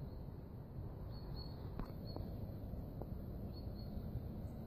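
Outdoor ambience: steady low background noise with faint short bird chirps in small groups and a few light clicks about two and three seconds in.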